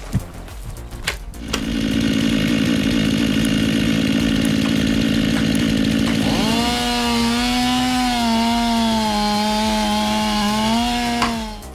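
Chainsaw running steadily while cutting a tree trunk, starting about a second and a half in. Its pitch dips a little about halfway through, and it cuts off near the end.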